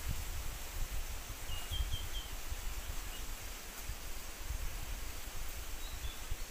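Wind rumbling on the microphone over a steady outdoor hiss, with a few faint, short bird chirps: a quick run of four about one and a half seconds in, and two more near the end.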